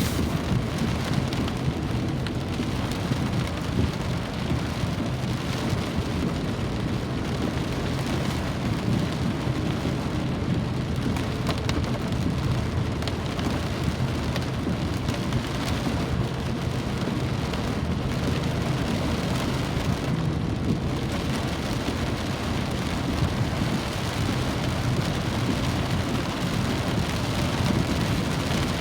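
Rain falling steadily: an even, unbroken wash of drops pattering on a surface.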